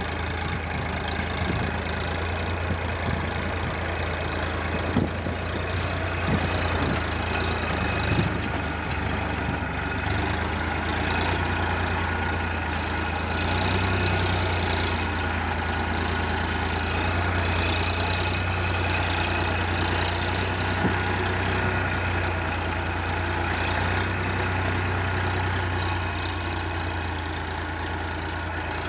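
Tractor engine running steadily as it pulls a mouldboard plough through dry soil, with scattered clicks and crackles in the first eight seconds or so.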